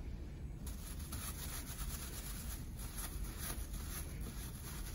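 Cotton towel rubbed briskly back and forth over a thin plastic bag strip on a countertop, a run of repeated scratchy strokes: the rubbing charges the plastic with static electricity.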